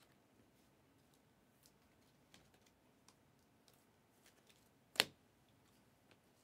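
Faint clicks and taps of trading cards being handled in a clear plastic sleeve, with one sharper click about five seconds in.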